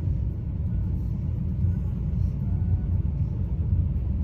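Steady low rumble inside a car's cabin from the engine idling while the car stands still.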